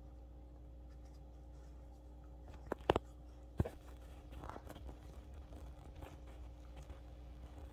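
Small dog chewing and gnawing at something on a quilted bedspread: three sharp cracks about three seconds in, then softer scratchy crackling as it keeps working at it.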